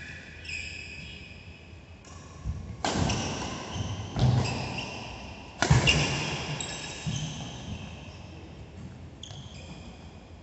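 Badminton rally: a handful of sharp racket strikes on the shuttlecock about a second apart, the loudest a little past the middle, each echoing briefly in the hall. Short high squeaks of court shoes on the synthetic mat come and go between the hits.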